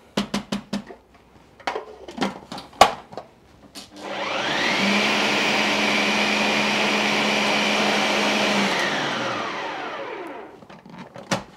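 Bosch food processor blending cauliflower purée with cream: a few clicks and knocks of handling, then the motor spins up about four seconds in with a rising whine, runs steadily for several seconds and is switched off, its pitch falling as it winds down.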